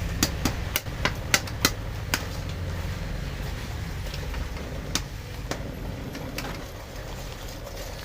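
A quick run of sharp clicks and taps, about a dozen in the first two seconds and a few more spaced out later, over a steady low rumble.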